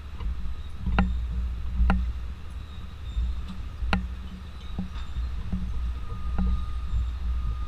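Steady low rumble of engines idling, with a series of sharp knocks from footsteps on the horse van's floor; a faint steady whine comes in near the end.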